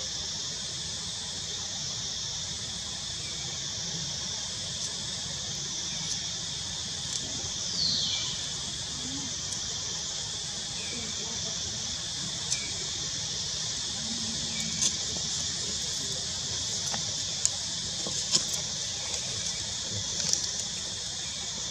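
Steady high-pitched drone of an outdoor insect chorus. A brief falling squeal comes about eight seconds in, and a few faint clicks follow later.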